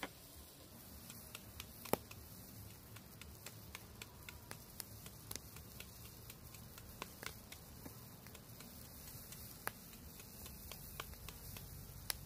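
Steel cleaver cutting into a carrot held in the hand: crisp, irregular cutting clicks, a few a second, with a sharper snap about two seconds in.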